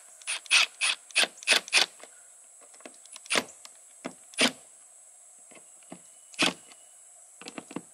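Milwaukee M18 Fuel cordless driver run in short bursts to drive a screw into a slide-topper bracket. There is a quick string of about six bursts in the first two seconds, then single ones spread out, and a few more near the end.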